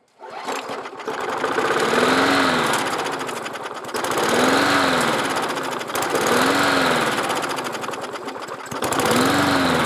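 Walk-behind lawn mower's small engine catching just after a pull-start and running, its speed surging up and back down about every two seconds. Surging like this fits a mower that starts and then dies for want of fuel through a partly clogged carburetor.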